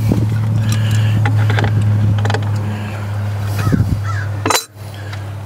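Crows cawing twice, near the end, over a loud steady low hum that drops in level suddenly with a sharp click, plus a few scattered clicks.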